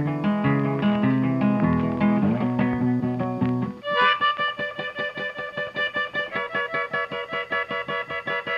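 Instrumental background music. It starts with held low notes, and about four seconds in it switches to a quick run of short repeated plucked notes.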